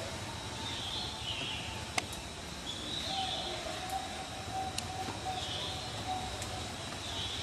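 Outdoor ambience of birds chirping: short calls that recur every second or two, over a steady low rumble, with a couple of faint clicks.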